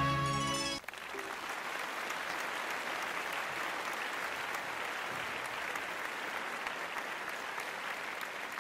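The last held note of the Indian classical dance music cuts off under a second in, followed by steady audience applause.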